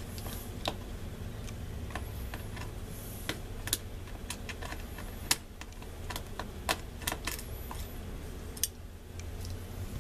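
Irregular small clicks and taps of a small Phillips screwdriver and tiny screws as the screws holding a laptop cooling fan are taken out, over a steady low hum.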